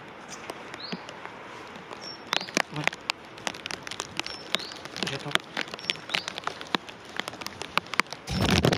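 Outdoor ambience while the siren is silent: irregular light ticks and taps with a few short high chirps. A louder low rumble comes in near the end.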